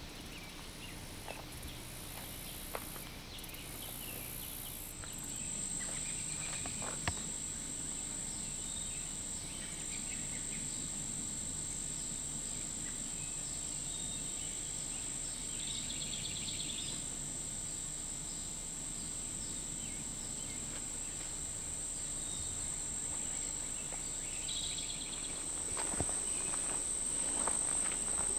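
Insects trilling outdoors in summer: one steady, high, unbroken note comes in about five seconds in, with short pulsed calls now and then, over a faint outdoor background. A few light clicks and knocks come near the end.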